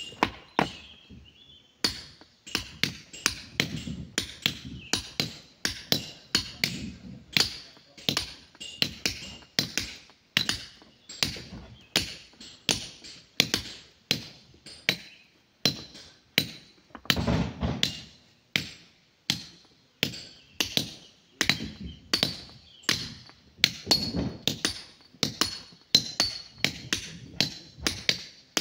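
Hand hammers striking stone as two miners break up boulders: a steady run of sharp clinks, about two blows a second, each with a brief metallic ring. The blows start about two seconds in.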